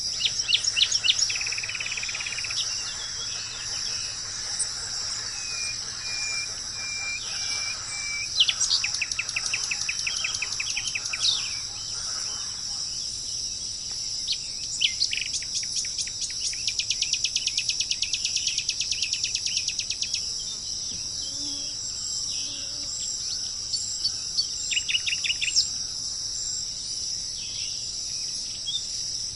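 Wild songbirds singing several bouts of rapid trills and a run of short, evenly spaced whistled notes, over a steady high-pitched insect chorus.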